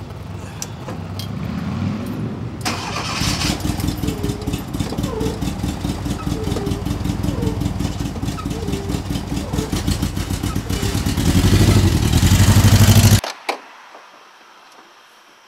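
Volkswagen bus's air-cooled flat-four engine starting and catching about three seconds in, then running with a fast, uneven pulse. It is revved louder near the end, then the sound cuts off suddenly.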